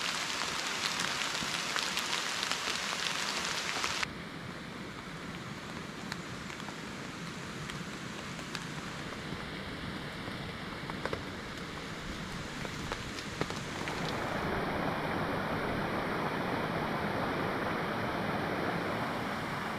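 Steady rain falling, with many separate drops ticking through the hiss. The sound changes abruptly about four seconds in, becoming quieter with fewer, more distinct drops, and again about fourteen seconds in, becoming a fuller, lower rush.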